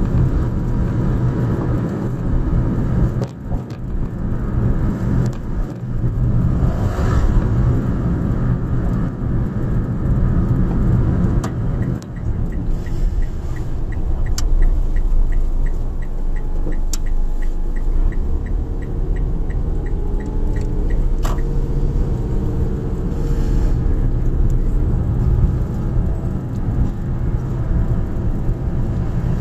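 Car interior noise while driving slowly: steady engine and tyre rumble. About midway, a regular ticking of about three clicks a second runs for several seconds, typical of the turn-signal indicator, while the car slows for an intersection.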